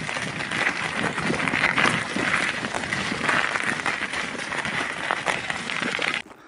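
Loaded touring bicycle's tyres crunching and rattling over loose gravel and stones, a dense continuous crackle that cuts off just before the end.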